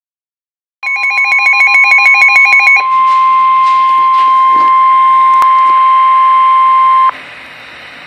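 NOAA Weather Radio warning alarm: a loud steady tone near 1 kHz (the 1050 Hz warning tone) comes out of a weather radio receiver just under a second in and cuts off sharply about seven seconds in. For its first two seconds it is overlaid by a rapid warbling electronic beep. After the cut-off there is only low receiver hiss.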